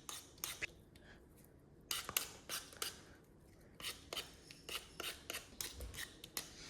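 A run of short, irregular scraping strokes, about one to two a second with brief pauses: potatoes being scraped or worked by hand.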